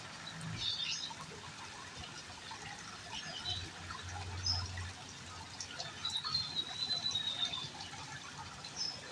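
Faint trickling water with a few faint, high bird chirps and a thin whistle a little past the middle.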